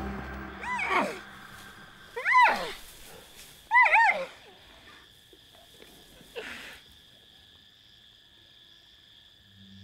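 Zebra barking calls: four short yelping calls that rise and fall in pitch, the second and third loudest, over the first seven seconds. A faint steady high trill runs underneath from about four seconds in.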